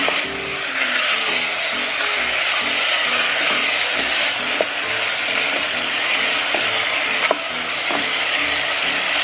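Beef on the bone browning in olive oil with garlic and onion in a stainless steel pot, sizzling steadily as a wooden spoon stirs it, with a few sharp clicks of the spoon against the pot.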